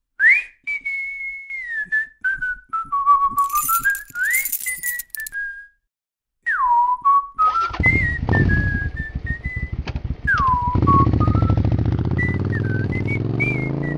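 A person whistling a tune. About seven and a half seconds in, a motorcycle engine starts and runs under the whistling, its pitch rising slowly near the end.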